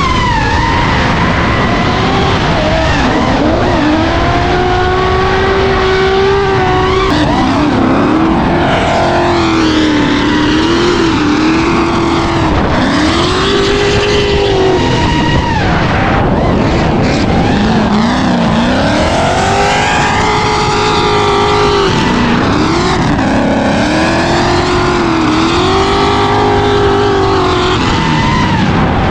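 Car engines revving hard, their pitch swinging up and down again and again every few seconds, over a constant noise of tyres skidding.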